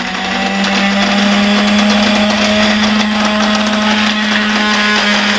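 Electric hard grinder (salt pulveriser) running at full speed and grinding rock salt into powder: a steady motor hum with a dense crackle of salt grains against the grinding chamber. It comes up to full level in about the first second.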